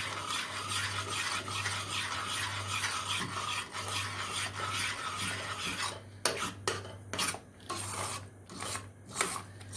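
A spoon stirring and scraping through a thick flour-thickened broth in a pot, continuous for about six seconds and then in separate strokes with short pauses between them.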